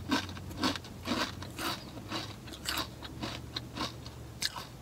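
Crunchy chewing of a potato chip, about two crunches a second.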